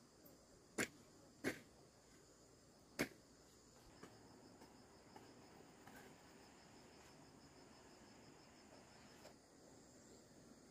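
Three sharp clicks in the first three seconds, then a faint, high-pitched insect trill pulsing evenly, typical of crickets.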